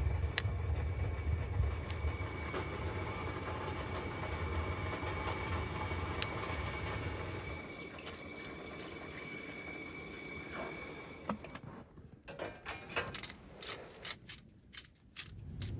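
Two-burner camp stove running with a low steady rumble, with a couple of light clicks of cookware, the rumble fading about halfway through. In the last few seconds a hand-twisted spice grinder gives quick, uneven clicks over the pot.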